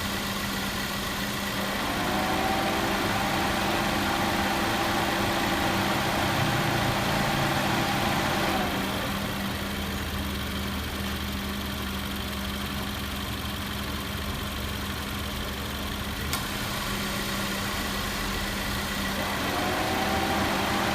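Idling engine of a 2018 Subaru Forester with the air-conditioning compressor cycling. A steady whine with a slight rise comes in about two seconds in as the compressor engages, cuts out about eight seconds in, and comes back near the end. It runs without abnormal noise after repair.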